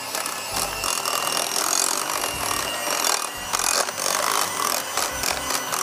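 Electric hand mixer running, its beaters whirring through cream cheese and icing sugar for frosting and clicking against the glass bowl.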